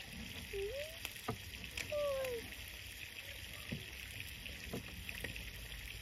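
A few light ticks and soft pattering as a seasoning is sprinkled by hand from a small jar onto sliced onions on a wooden board, over a steady outdoor hiss.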